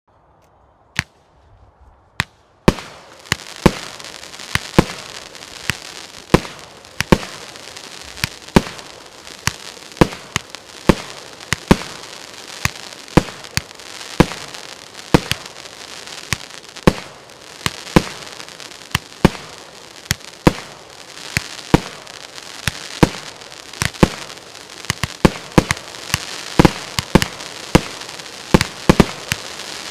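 36-shot firework cake firing. Two single shots in the first seconds are followed by a steady run of sharp reports, about one every three-quarters of a second and quicker near the end. A continuous crackle from the bursting stars runs between the shots.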